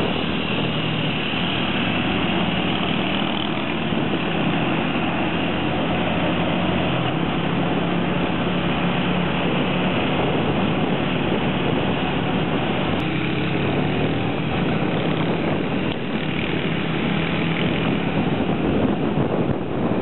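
Motorcycle engine running steadily while riding, under a constant rush of wind and road noise.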